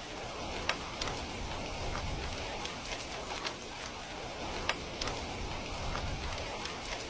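Heavy rain falling steadily, with scattered sharp individual drops standing out.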